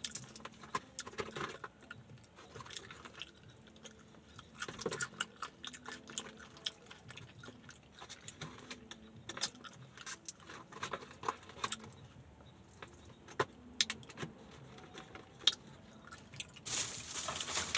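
Quiet chewing and biting of crispy fried fast food, with scattered crunches. Near the end a louder rustle of a paper food box.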